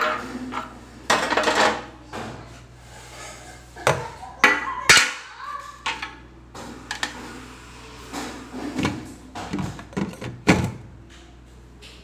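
Plastic refrigerator door bins and shelf parts knocking and clattering as they are handled and fitted back into the fridge door, with a series of irregular sharp knocks over a low steady hum.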